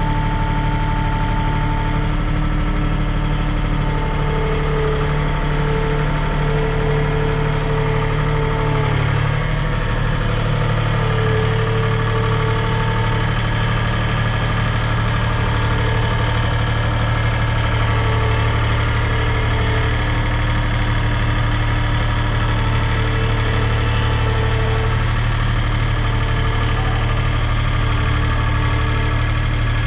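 A farm machine's engine running steadily, its pitch shifting slightly about nine seconds in.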